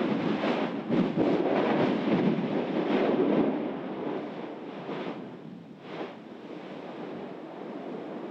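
Yasur volcano's vent erupting: a loud rushing roar of gas and spatter with repeated short blasts for about the first three seconds, then dying away, with two fainter blasts near the end.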